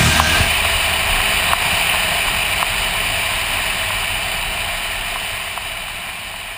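Wind rush and road noise from a touring motorcycle riding at speed, recorded on a bike-mounted camera: a steady rushing hiss that fades out gradually, with a few faint ticks.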